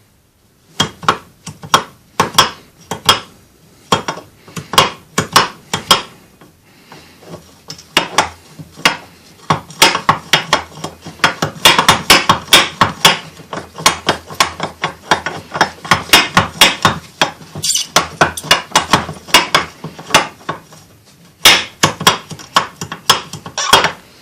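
Hammer blows on steel: a long series of sharp, ringing metallic strikes in runs with short pauses, from knocking out the bearing cups of a Lada Niva propeller shaft's universal-joint cross.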